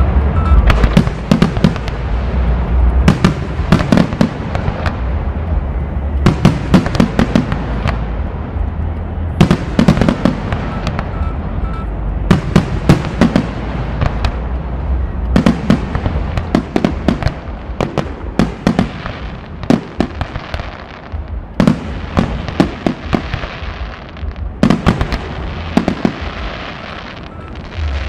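Aerial fireworks shells bursting in rapid clusters of sharp bangs, a new volley every couple of seconds.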